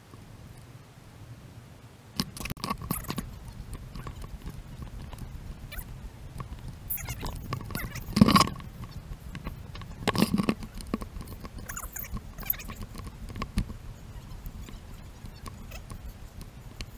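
Quick footsteps crunching on a sandy dirt trail in an uneven rhythm, starting about two seconds in, over a low rumble. A couple of louder bumps come about halfway through.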